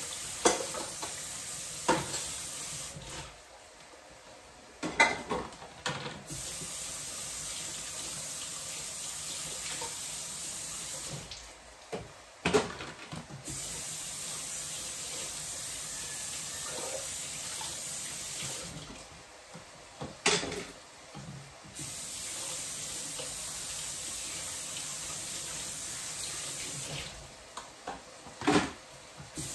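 Kitchen tap running into the sink while dishes are washed by hand, shut off briefly four times. In the breaks come sharp clinks and knocks of dishes and containers being handled.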